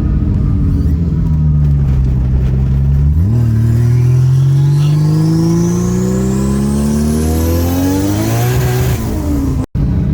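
Toyota 1JZ inline-six in a Corolla running at steady revs, then about three seconds in the throttle opens and the revs climb steadily for about six seconds under full power, a high whine rising with them. The sound cuts off abruptly near the end.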